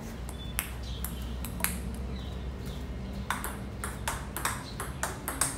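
Table tennis ball clicking off paddles and the table: a couple of single knocks at first, then from about three seconds in a fast, even forehand rally with strikes a few tenths of a second apart.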